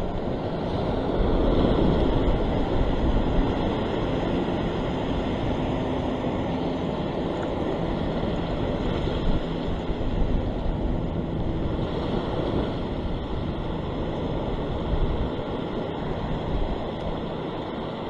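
Surf washing in swells across a flat rock ledge, a steady rush of foaming water that surges a few times, with wind buffeting the microphone.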